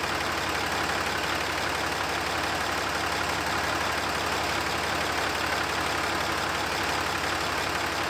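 Dodge Ram pickup engine idling steadily, with the newly fitted air-conditioning compressor engaged and drawing refrigerant into the system.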